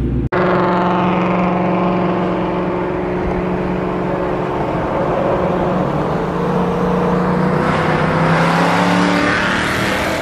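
Ford Mustang 5.0 V8 exhaust droning at a steady highway cruise, with a rush of wind and road noise building louder over the last few seconds.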